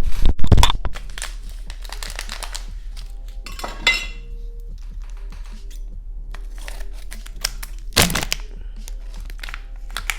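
A packet of strawberry Pop Rocks candy crinkling and tearing as it is handled and opened. The crackles come in scattered strokes, louder at the start and again near the end, over faint background music.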